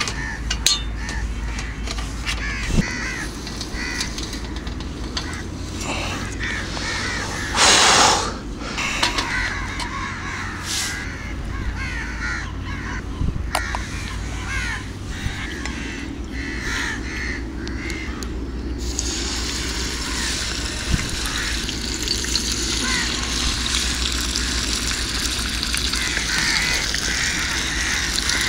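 Fish frying in hot oil in a pan on a portable butane camping stove, with a steady sizzle that starts about two-thirds of the way in. Earlier, a brief loud rush of noise about a quarter of the way in.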